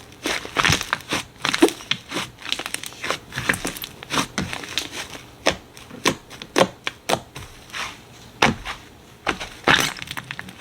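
Slime being squeezed and poked by hand, making irregular crackling and popping clicks several times a second.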